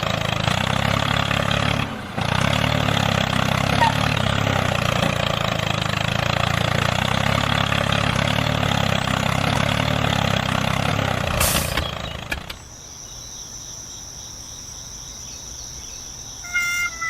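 A small engine running steadily, cutting off about twelve seconds in. After it, a faint steady high whine remains, and a few musical notes start near the end.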